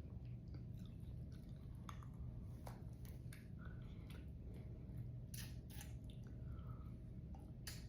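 A person chewing a bite of chamoy pickle with its snack toppings: soft, wet, squishy mouth sounds and scattered small clicks over a steady low hum.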